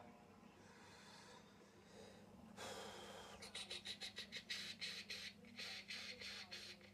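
Faint low hum, then from about halfway in a quick scratchy rubbing, around three strokes a second, from fingers working the open end of a small soft model fire hose to fit it over its nozzle.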